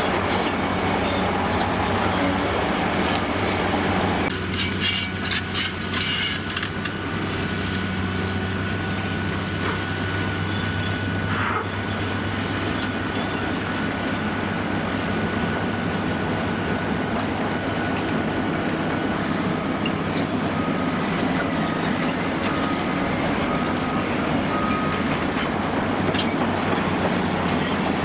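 Large diesel demolition excavator running steadily under load with hydraulic whine. About four to seven seconds in there is a run of sharp cracks and clatters, typical of concrete breaking and debris falling.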